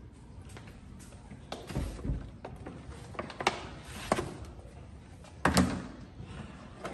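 A few sharp clicks and knocks from objects being handled, with a heavier thump about five and a half seconds in.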